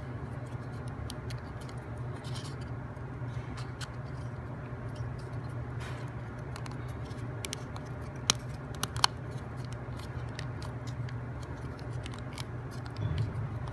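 Small clicks and taps of plywood puzzle pieces being handled and pressed into place, with a few sharper clicks just past the middle, over a steady low background hum.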